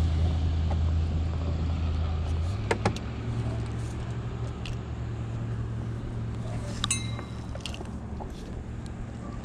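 A boat motor running with a steady low hum that steps up slightly in pitch about two and a half seconds in and slowly fades. A couple of sharp clicks come near the start and another later on.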